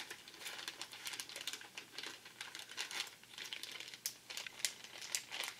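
Plastic bait packaging crinkling and crackling as it is handled, with quick irregular clicks.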